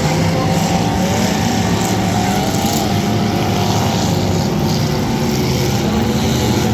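Demolition derby car engines running loudly and steadily, a dense low rumble with faint wavering tones above it.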